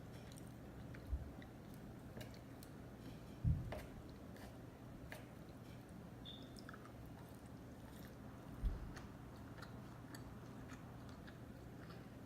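A person chewing a mouthful of sushi close to the microphone, with small wet mouth clicks throughout. Three low thumps stand out: about a second in, a third of the way in (the loudest) and about two-thirds in.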